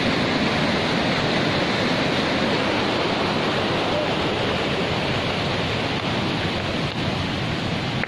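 Steady rushing of a river in flash flood, fast, turbulent floodwater.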